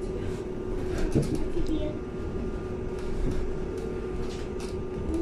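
Cabin of a LiAZ-6274 electric bus under way: a steady hum at one pitch over low road rumble, with light rattles and clicks from the body.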